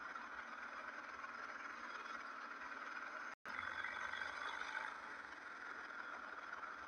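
Steady running noise of a vehicle moving fast over asphalt, heard close to the road surface: an even hiss of road and running noise with no clear engine note. It cuts out to silence for an instant about halfway through, then resumes slightly louder.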